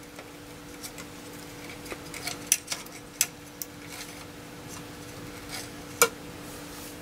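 Scattered light metallic clicks and clinks as a hand moves the trimmer circuit board on the underside of a Yaesu FT-101E transceiver's chassis, the loudest about six seconds in. A steady low hum runs underneath.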